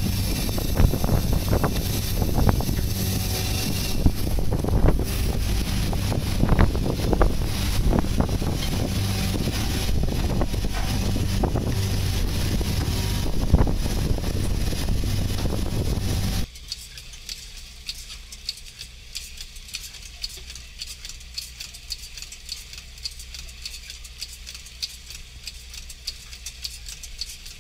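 Longline being hauled aboard a fishing boat in rough sea: heavy wind on the microphone over engine and sea noise, with scattered knocks as line and fish come over the hauler. About sixteen seconds in, this gives way to a much quieter steady hum with fast light ticking from an automatic longline baiting machine running line through.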